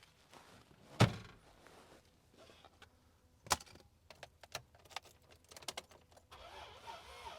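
A car door of a 2003 Isuzu Rodeo shuts with a loud thunk about a second in, followed by jangling keys and light clicks as the ignition is worked. Near the end a steady pulsing whir begins: the engine being cranked without starting.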